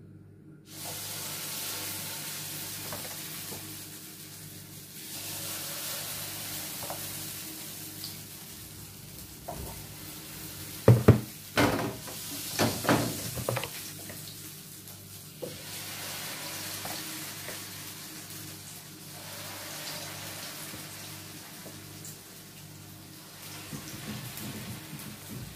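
Potato pancake batter sizzling in hot vegetable oil in a frying pan, the sizzle starting about a second in as the first batter goes in. A few knocks against the pan come about halfway through as more batter is added.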